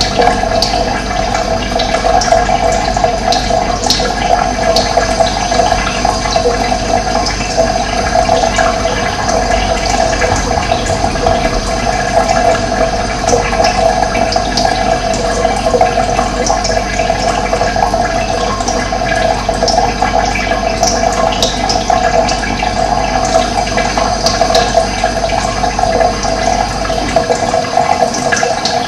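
Running water: a steady, loud rush of flowing water.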